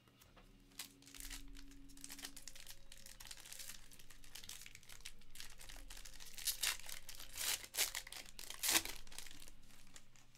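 A trading card pack's wrapper being torn open and crinkled by hand, a run of irregular crackling and tearing noises with the loudest crinkle near the end.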